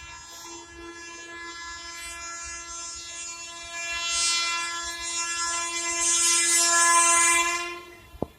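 WAP7 electric locomotive's horn sounding one long, unbroken blast on a single pitch as the express approaches at speed. It grows steadily louder and cuts off sharply near the end, followed by a single click.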